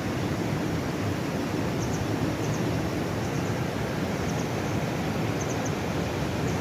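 River rapids rushing in a steady, even roar of water, with a few faint high double chirps now and then.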